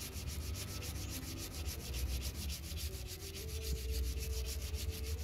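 Toothbrush bristles scrubbing back and forth over a grimy painted metal bracket in a car's engine bay, worked with engine-cleaning liquid: a quiet, continuous scratchy rubbing.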